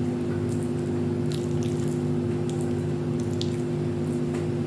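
Soft, scattered clicks and squishes of a metal spoon scooping shredded chicken asado filling into siopao dough, over a steady low hum.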